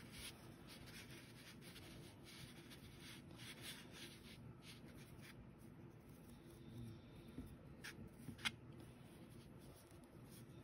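Faint scratchy rustling of yarn being wound around a pipe-cleaner doll's arm, with a couple of small ticks about eight seconds in.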